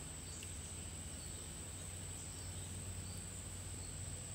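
Insects calling in a steady, unbroken high-pitched chorus, over a low steady rumble.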